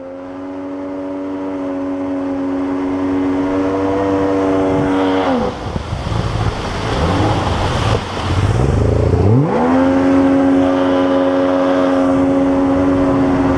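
Outboard water-jet motor on a Fregat 480jet inflatable PVC boat running at steady high revs, with water rushing past the hull. About five seconds in the revs drop sharply to a low rumble, then about nine seconds in they climb back up and hold steady.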